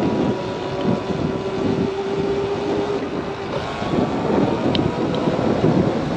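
Sur-Ron electric dirt bike's motor whining steadily under wind buffeting the microphone; the whine drops away about three and a half seconds in and comes back at a higher pitch.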